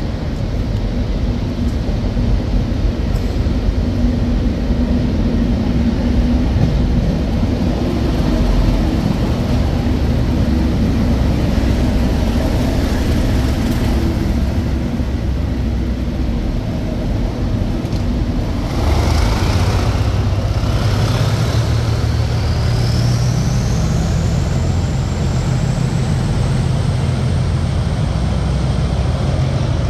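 Diesel locomotive engine running with a steady low rumble. About 19 s in the engine note strengthens and a whine rises in pitch, then holds as a high steady whistle.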